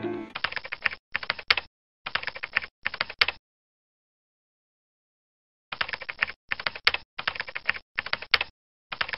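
Computer keyboard typing sound effect: short runs of rapid key clicks. They stop dead for about two seconds a third of the way in, then resume in further runs.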